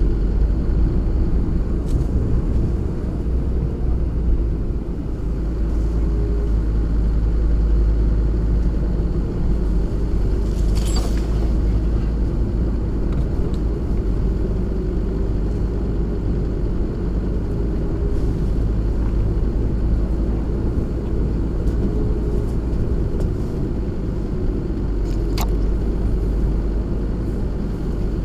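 SsangYong Korando's 2.9-litre turbodiesel engine running under way as the vehicle drives along a rough off-road track, a steady low rumble. A few short knocks sound over it, one about eleven seconds in and one near the end.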